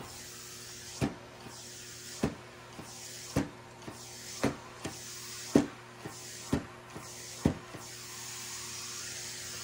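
Shark S1000WM steam mop running: a short pulse about once a second over a faint steady hum and hiss.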